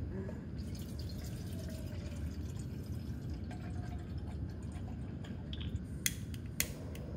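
Water dripping over a steady low rumble, with two sharp clicks near the end.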